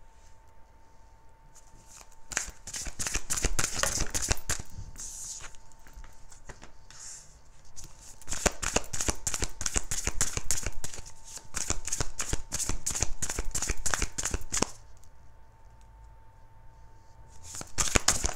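A deck of tarot cards being shuffled by hand, in three runs of crisp rapid card clicks: one about two seconds in lasting a couple of seconds, a longer one from about eight seconds to nearly fifteen, and a short one near the end.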